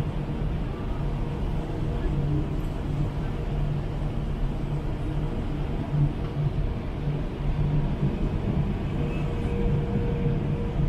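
Steady low engine rumble with a hum, holding an even level throughout.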